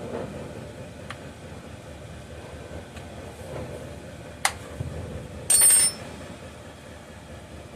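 Hand tools working on a chainsaw: a single sharp click about four and a half seconds in, then a louder half-second metallic clatter with a high ring near six seconds, over a steady background hum.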